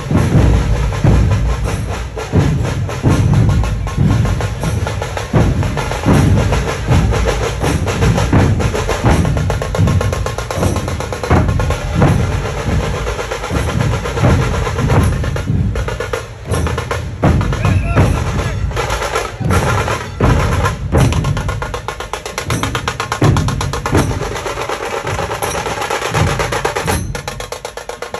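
Dhol-tasha troupe playing: large barrel drums (dhol) beat a loud, driving rhythm of heavy low thumps, with crisp rapid high strikes over them.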